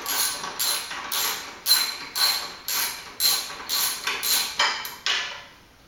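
Ratchet wrench with a 17 mm socket worked back and forth in quick strokes, about two a second, its pawl rasping on each stroke as a loosened nut is run off; the strokes stop about five seconds in.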